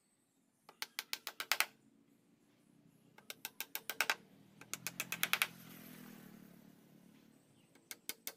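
Claw hammer rapidly tapping at the joint of a wooden cabinet frame. There are three quick runs of about eight strikes each, and a few more strikes near the end.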